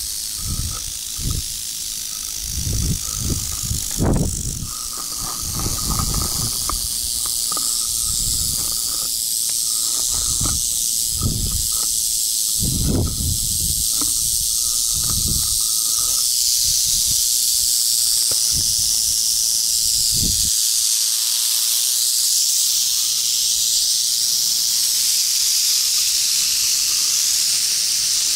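Prairie rattlesnakes rattling in defensive warning: a continuous high, dry buzz that grows steadier and slightly louder about halfway through. In the first half, irregular low thumps come through on the microphone.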